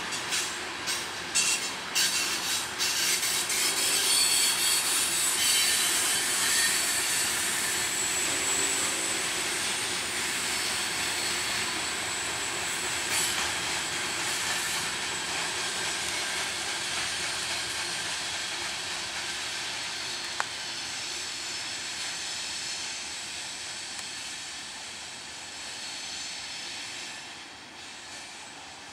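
Freight train of covered hopper cars rolling past on steel wheels, with a quick run of wheel clicks over rail joints in the first few seconds and a high wheel squeal and hiss. It fades over the last few seconds as the train moves away.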